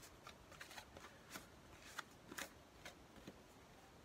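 Faint, scattered light scrapes and clicks of hand work on a classic Mini's rear body panel during filler preparation, about one every half second.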